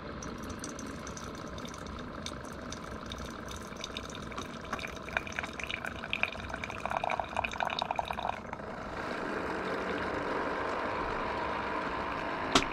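Single-cup coffee maker brewing: hot coffee streaming into a mug with gurgling and crackling, settling into a steadier hiss about nine seconds in. A sharp click near the end.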